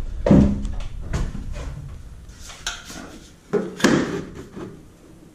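A few knocks and scrapes of a long metal plasterer's straightedge being handled and set against a wall, irregularly spaced, the loudest near the end.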